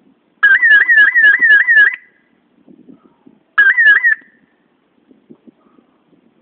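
Fire alarm horn sounding a rapid, repeating sweep, about four a second, in two blasts: a longer one of about a second and a half, then a short one a couple of seconds later.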